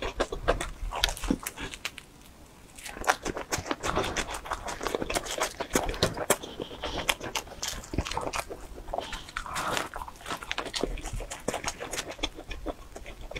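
Close-miked chewing of a pizza slice: a dense run of wet mouth clicks and soft crust crunches, with a short lull about two seconds in.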